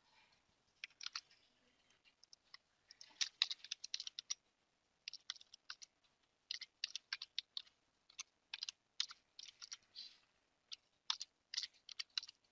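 Computer keyboard being typed on: faint, irregular key clicks in short runs.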